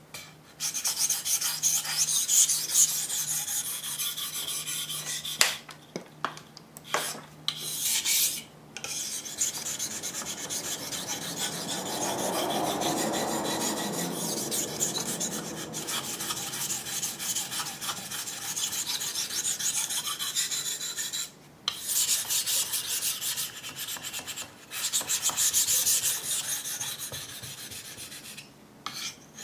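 A Case XX boning knife blade being stroked rapidly back and forth across a wet whetstone, a steady scraping hiss that stops briefly a few times between runs of strokes.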